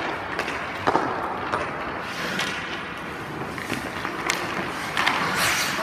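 Ice hockey goalie's skate blades scraping across the ice as he pushes around the crease, with a few short, sharp knocks as his pads and stick hit the ice.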